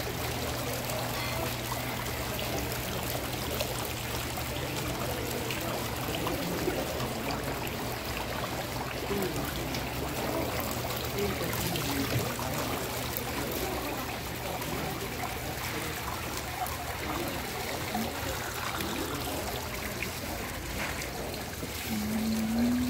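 Steady rushing and trickling of water cascading down an indoor water-wall fountain, with background music and a low hum underneath.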